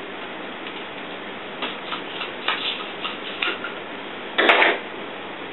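Scissors snipping the excess plastic gift-wrap film at the open end of a polycarbonate saber-blade tube: a run of small clicks and snips, then a louder burst with a sharp click about four and a half seconds in.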